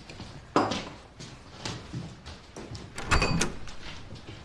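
A few scattered knocks and clatters of things being handled, then a louder cluster of clinking and rattling about three seconds in.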